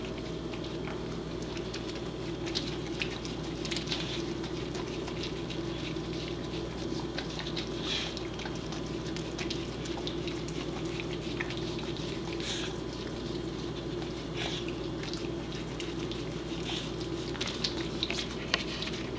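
A corgi working at an egg with her mouth: irregular small clicks, licks and crunches as she bites and licks at it. A steady low hum runs underneath.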